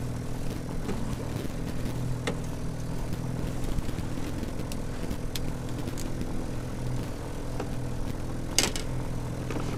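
Trolling boat's outboard motor running steadily, a low even hum. There are a few light clicks and one sharp knock near the end.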